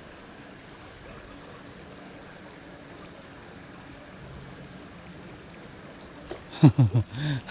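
Steady rushing outdoor noise of wind and creek water. Near the end come two short, loud voice-like sounds, the first falling in pitch and the second rising and falling.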